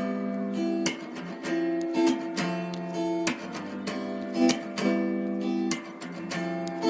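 Background music: acoustic guitar being strummed and plucked in a steady rhythm, a chord struck about every half second to second.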